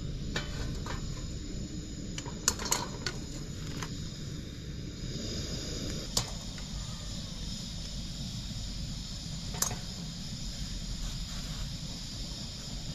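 Sharp metal clinks from an aluminium kadai being set on a single-burner gas stove's pan support and a wire-mesh strainer knocking against it, a handful spread out with the loudest two close together about two and a half seconds in. Under them runs a steady low rumble.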